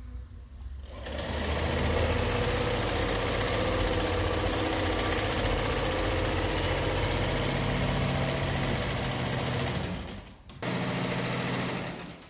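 Janome electric sewing machine stitching fabric at a steady speed. It starts about a second in, stops briefly near the end, then runs again for a moment before stopping.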